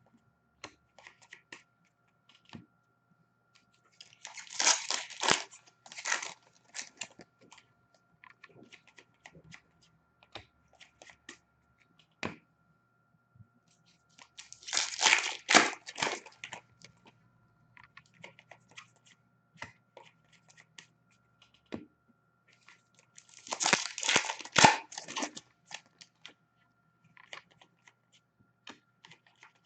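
Hockey card pack wrappers being torn open and crinkled, in three bursts about ten seconds apart, with faint scattered clicks in between.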